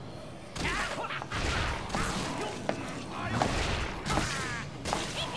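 Anime battle sound effects: a dense, chaotic run of crashes and impacts starting about half a second in, with some pitched cries mixed in.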